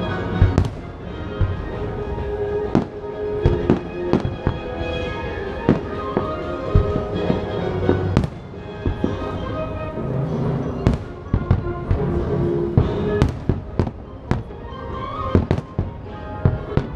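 Aerial fireworks shells bursting in an irregular run of sharp bangs, over the fireworks show's music soundtrack.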